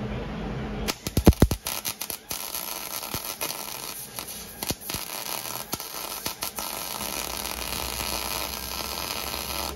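Electric welding arc crackling as a nut is welded onto a broken engine stud to extract it. It starts about a second in with a few sharp pops as the arc strikes, runs as a steady sizzling crackle, and cuts off at the end.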